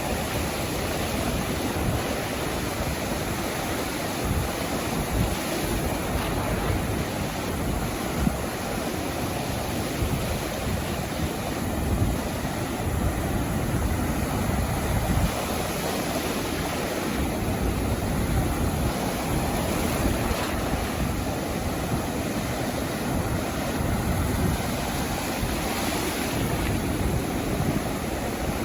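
Sea surf washing onto a beach in a continuous rushing wash, with wind buffeting the microphone.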